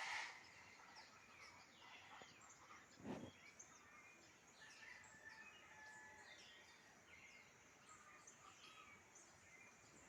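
Faint outdoor birdsong: many small birds giving short, high chirps that fall in pitch, over a quiet background, with one brief, louder low sound about three seconds in.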